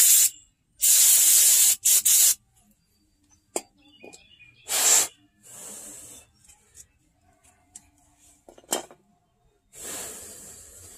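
Short bursts of pressurized spray hissing: several in the first two seconds, another about five seconds in, and a fainter, fading one near the end. Scattered light clicks fall between them. The spraying is part of cleaning the van's parking-brake adjuster parts.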